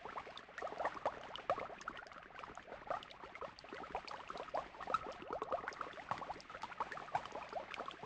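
Freshly mixed two-part epoxy resin in a plastic mixing cup fizzing faintly as its many tiny air bubbles pop: a dense, quiet crackle of small pops. This is the stage where the stirred-in air is left to escape before the resin is applied.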